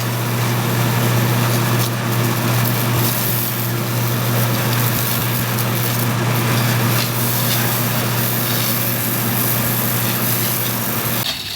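A motor-driven machine running steadily at constant speed, with a strong steady hum over a broad hiss; it cuts off abruptly near the end.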